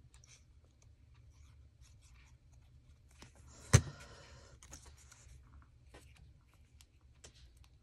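Quiet rustling and light scratching of paper being handled while a paper tab is glued on, with one sharp tap a little under four seconds in.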